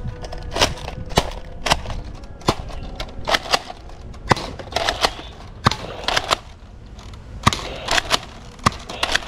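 Toy foam-dart blasters firing: a quick irregular string of sharp plastic snaps, about two a second.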